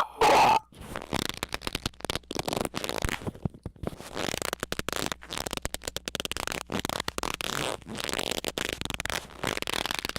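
A short, loud squeal at the very start, then a long run of dense, irregular crackling and rubbing clicks.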